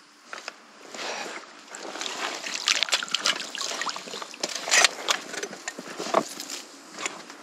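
Long-handled landing net being drawn through seawater and hauled out, water splashing and streaming off the mesh, with sharp knocks as the net frame meets the concrete.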